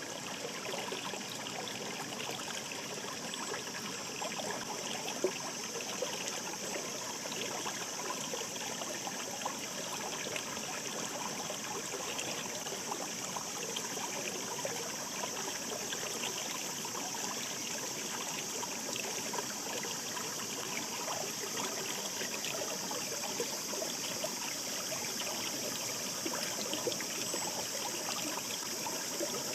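A shallow mountain stream babbling and trickling over stones, steady throughout, with small splashes and gurgles.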